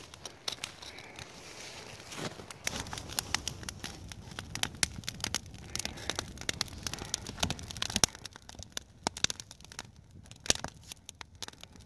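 Small wood campfire crackling, with irregular sharp pops and snaps; the loudest comes about eight seconds in.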